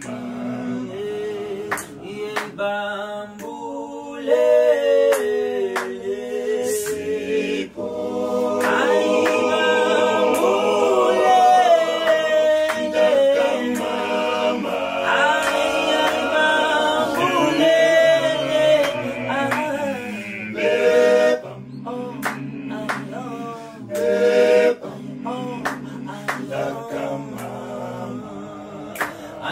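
Male a cappella vocal group singing in close harmony, a lead voice over sustained chords from the other singers, with no instruments. The singing grows fuller and louder through the middle stretch, then thins out again.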